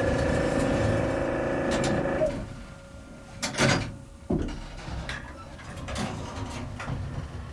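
1954 Otis elevator car and its doors starting a ride: a steady electric hum that cuts off about two seconds in, followed by two loud clunks about a second apart and then a quieter rumble.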